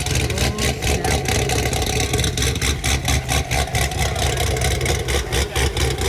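Chevy SS's LS3 V8, fitted with a Stage III cam and catless long-tube headers, running with a choppy, pulsing exhaust note.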